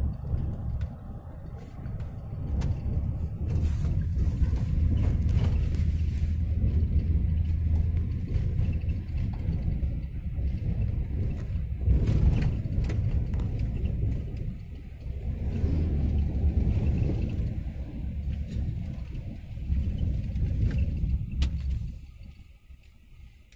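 Low rumble of road and wind noise heard from inside a moving road vehicle. It swells and fades, then drops off sharply near the end.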